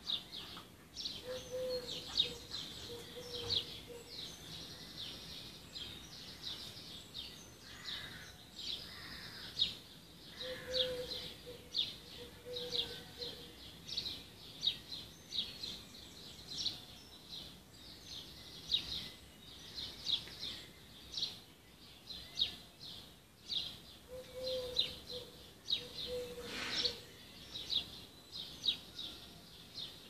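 Dawn birdsong: many small birds chirping and singing in quick high notes throughout, with a lower call of two or three notes repeated three times, about ten seconds apart.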